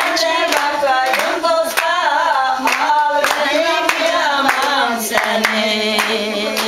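Elderly women singing a Turkish folk song (türkü) unaccompanied, with steady hand claps keeping the beat.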